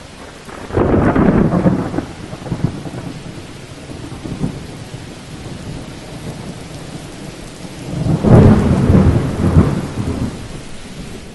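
Thunderstorm: steady rain hiss with two long rolls of thunder, the first about a second in and the second about eight seconds in, each rumbling for a couple of seconds.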